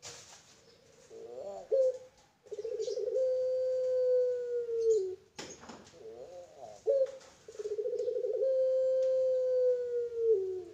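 Puter pelung, a domestic Barbary dove bred for its long-drawn coo, calling twice. Each call opens with a few short wavering notes, then holds one long steady coo for about three seconds that sinks in pitch at the end. A sharp click falls between the two calls.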